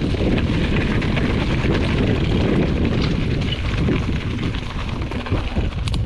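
Mountain bike rolling fast over a rough dirt trail: steady tyre rumble with wind buffeting the camera microphone, and small rattles and knocks from the bike over bumps.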